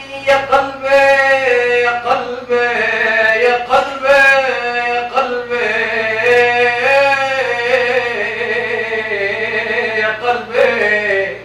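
A man singing ʿataba, the Levantine folk vocal form, solo voice in long held notes with wavering ornaments, breaking off near the end.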